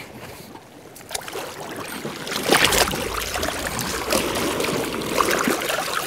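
Sea water lapping and splashing against the rocks of the shore in uneven surges, quiet at first and louder after the first second or two.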